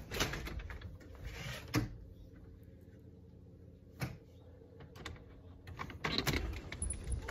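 Rustling and knocks of a handheld phone being carried while walking, with a single sharp click about four seconds in and a cluster of knocks and rattles near the end as the front door is reached and opened.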